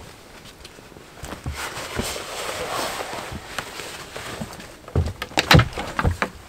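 Footsteps of a hiker on a forest trail, with rustling and crunching underfoot. A cluster of sharp, louder cracks comes about five to six seconds in.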